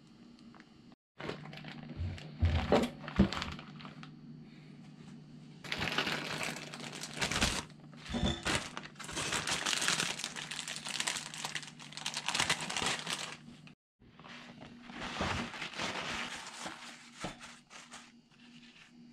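Paper towels and a plastic bag crinkling and rustling in three spells as marinated quail eggs are handled and patted dry, with a few sharp knocks in the first half.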